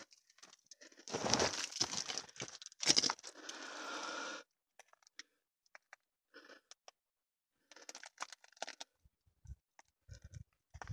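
Footsteps crunching on gravelly ground in a few short bursts over the first four seconds, then only scattered faint clicks.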